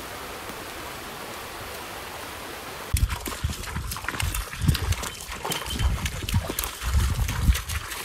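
A forest creek rushing steadily for about three seconds; then, after a cut, pack goats splashing through a shallow rocky stream, with many quick clicks of hooves on stones over low thuds.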